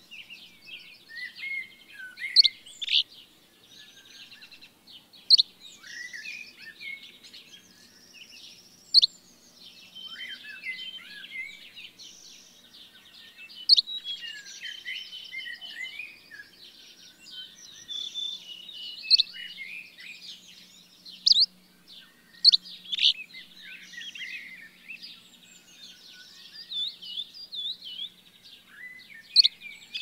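Several songbirds singing at once in a dense, overlapping chorus of warbles and trills. A sharp, loud chip note stands out every few seconds.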